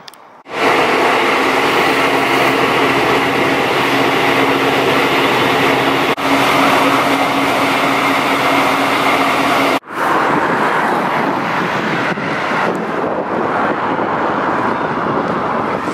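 Loud, steady travel noise from moving vehicles: a continuous rush with a held low hum. It breaks off and resumes abruptly about six and about ten seconds in, as the footage changes from one journey leg to the next.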